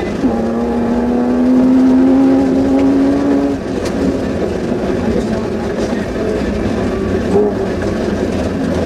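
Suzuki Vitara off-road car's engine heard from inside the cabin, held at steady high revs for about three and a half seconds, then dropping off into a rougher, lower running as the driver eases off.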